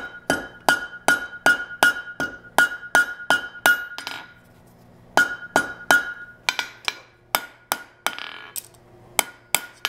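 Cross-peen hammer striking red-hot horseshoe steel on an anvil horn, about three blows a second, each leaving the anvil ringing; this is the hammering that thins out the neck. The blows stop for about a second around four seconds in, then start again, less evenly spaced.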